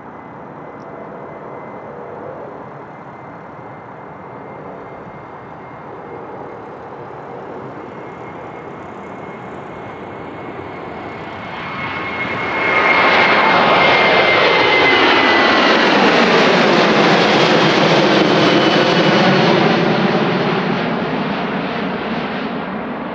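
Boeing 737-800 jet airliner's CFM56-7B turbofan engines at takeoff power. A distant roar with a steady high fan whine builds during the takeoff roll, turns loud about twelve seconds in as the airliner climbs past, and the whine sweeps down in pitch as it passes. Near the end it fades as the airliner climbs away.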